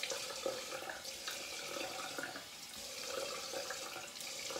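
Water running from a tap into a bathroom sink, steady, with uneven splashing.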